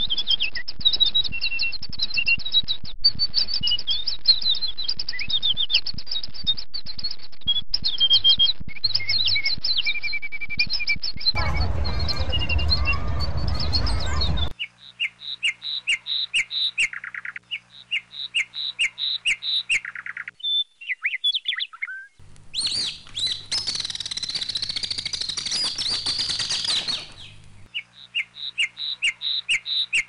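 Small birds chirping and twittering in quick, repeated high calls. The chirping is broken twice by a rushing noise lasting a few seconds, once about a third of the way in and again later.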